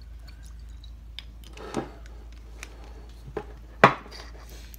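Sauce bottle being handled and set down in the kitchen: a few light clicks and knocks, with one sharp knock just under four seconds in.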